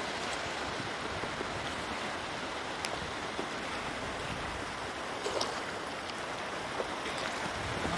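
Shallow tidal water sloshing and rushing around a wader's legs and hands as he works a net bag in it, with a few light splashes.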